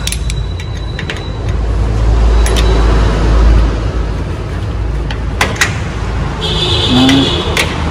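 Steel shipping-crate frame being worked loose with locking pliers: a few sharp metallic clicks and knocks over a low rumble that swells in the middle.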